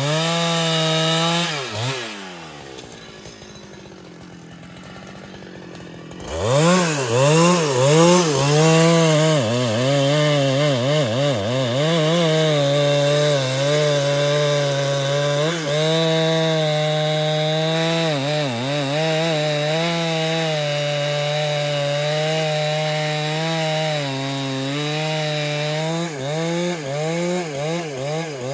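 Large two-stroke chainsaw revs up briefly, drops to idle for a few seconds, then runs at full throttle cutting through a thick hardwood log. Its engine pitch dips and recovers again and again as the chain bogs under load in the wood, easing off near the end.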